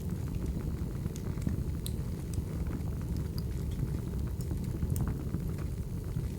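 Crackling wood fire: a steady low rumble of burning firewood with scattered, irregular sharp crackles and pops.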